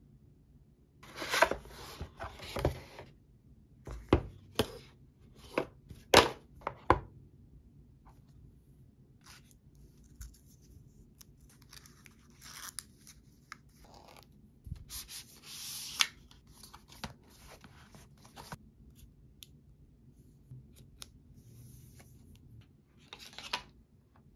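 Apple Watch packaging being opened and handled: paper and plastic tearing and rustling, with sharp clicks and taps as box parts and pieces are set down. Protective film is peeled off the watch.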